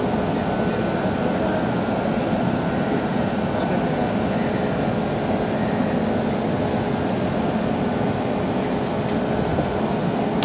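Steady machine hum of a standing WAP7 electric locomotive's running auxiliaries, an even drone with a few faint steady tones through it.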